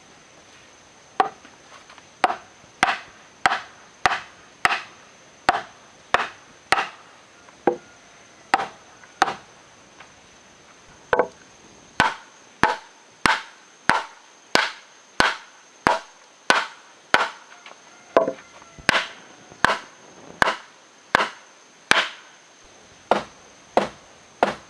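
Repeated wood-on-wood knocks as a square timber post is struck with a hand-held length of wood, driving its tenon down into a mortise in a timber beam. The blows come about one and a half to two a second, with a short pause near the middle.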